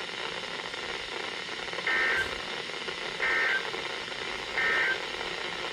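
Three short, identical bursts of the EAS (SAME) digital data tone, evenly spaced about a second apart, over a steady background hiss. This is the end-of-message signal that closes an emergency weather alert broadcast.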